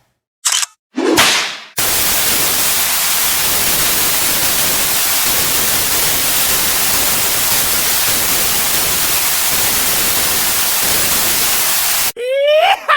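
Two quick whip-like whooshes, the second falling in pitch, then about ten seconds of steady static hiss, like white noise, that cuts off suddenly. A rising pitched sound starts just before the end.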